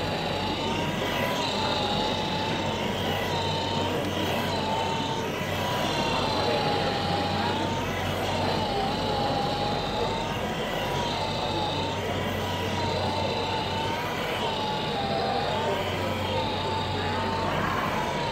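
Small electric motor of a powered dog brush running with a steady whine over a low hum, its pitch wavering slightly every second or two.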